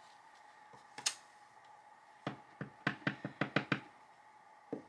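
Clear acrylic stamp block knocking and tapping on the work surface while a stamp is inked and pressed onto paper. There is a single knock about a second in, a quick run of about eight taps in the middle, and one more knock near the end.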